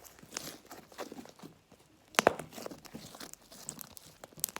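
Crunchy slime being worked by hand, crackling and popping in scattered small clicks, with the loudest crackle about two seconds in.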